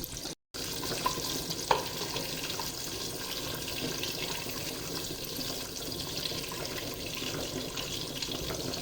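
Butter melting in hot olive oil in a pan, a steady sizzle, with one sharp click a little under two seconds in.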